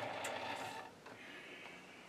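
Metal lathe switched off and coasting to a stop, its motor and gear noise fading out over about a second, with one click shortly after the start.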